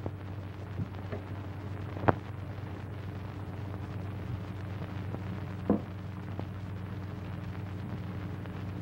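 Steady low hum and hiss of an old 1930s film soundtrack, with a sharp click about two seconds in and a shorter knock a little before six seconds.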